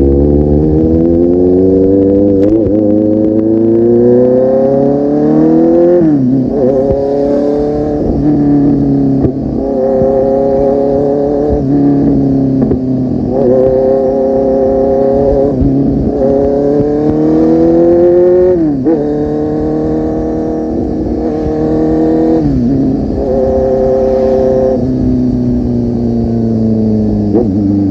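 Kawasaki Z800's inline-four engine through an aftermarket full-system exhaust, riding and accelerating. The revs climb for a few seconds, then drop sharply at each gear change, many times over, with a few steadier cruising stretches in between.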